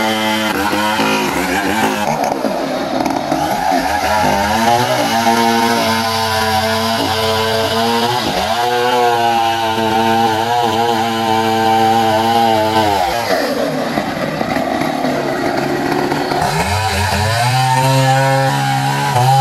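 Two-stroke petrol chainsaw running at high revs and cutting into a mahogany trunk, its pitch sagging and recovering as it bites. About 13 seconds in it drops back, then revs up hard again near the end.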